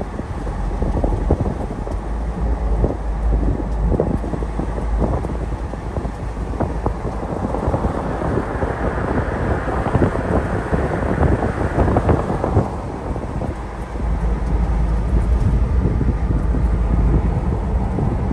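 Wind buffeting the microphone over the low rumble of road noise in a moving Ford Bronco, with the rushing getting louder for a few seconds midway before settling again.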